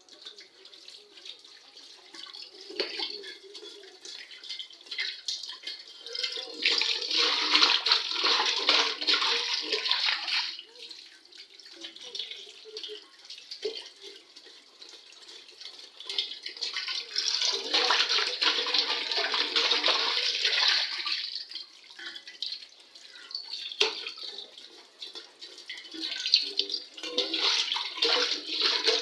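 Dishes being washed in a kitchen sink: tap water running onto an aluminium container in three loud spells, with lighter clinks and scrubbing of utensils between them.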